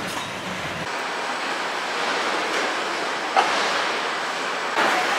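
Steady background noise of a vehicle assembly line, machinery and air running with no clear rhythm; a low rumble drops out about a second in, and a single sharp knock sounds about three and a half seconds in.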